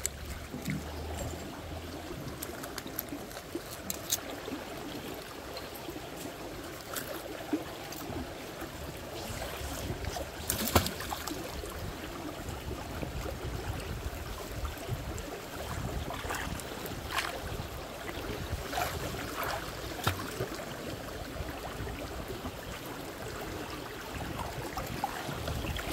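Steady noise of running water, with scattered short clicks and knocks, the loudest about halfway through.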